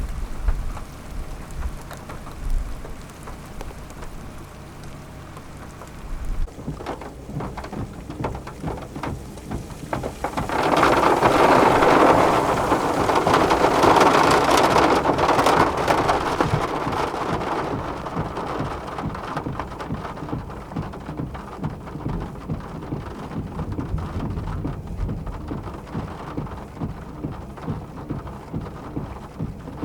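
Rain pattering steadily, surging into a heavy downpour about ten seconds in for several seconds before easing back, with a few low rumbles near the start.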